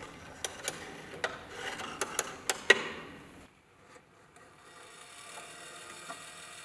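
Thin brass rod scraping in a slot in the base of a polymer-clay sculpture, with about seven sharp clicks, the loudest about two and a half seconds in. After a short pause a faint steady hum sets in.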